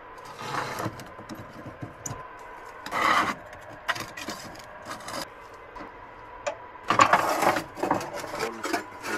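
Ash and clinker being scraped and scooped by hand out of a wood-burning stove's firebox and dropped into a metal ash bucket: rustling, gritty scraping and light clinks, loudest about three seconds in and again about seven seconds in.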